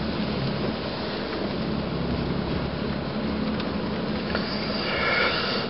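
Car cabin noise while driving on a wet road: a steady engine and tyre rumble.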